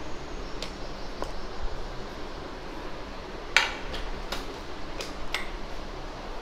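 A few light, sharp clicks and knocks, about six in all, the loudest about three and a half seconds in, as pizza dough is pressed and shaped by hand on a wooden rolling board with a wooden rolling pin in hand, over a steady background hiss.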